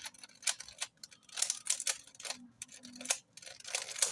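Rubik's cube being turned fast by hand: its plastic layers click and clack in quick, irregular snaps as it is solved.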